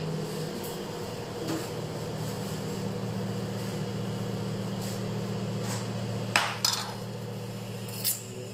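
Knife and metal ruler clicking against a wooden cutting board as a slab is measured and marked, a few sharp taps in the second half, over a steady low hum.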